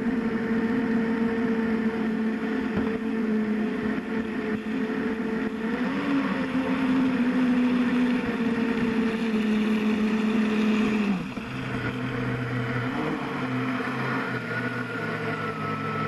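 Electric motor of a radio-controlled boat running at speed on a 4S battery, a steady whine. The pitch wobbles briefly about six seconds in, then drops to a lower note about eleven seconds in as the boat slows.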